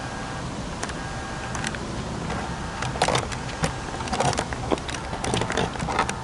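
Camera handling noise: irregular clicks and knocks, thickest in the middle, over a steady low rumble.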